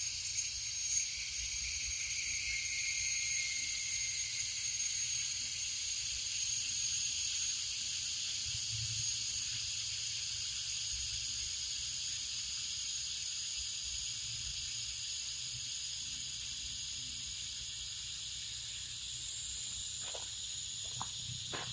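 Air hissing steadily out of a tire's open valve stem with the valve core removed, as the tire deflates; the hiss eases off slightly toward the end, where a couple of faint clicks are heard.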